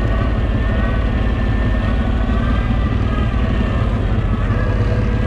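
CFMoto X8 ATV's V-twin engine running steadily, its pitch wavering slightly up and down.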